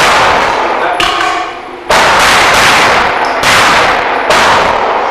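Five pistol shots about a second apart, fired at steel targets in a practical pistol course of fire, with steel plates clanging and ringing after the hits.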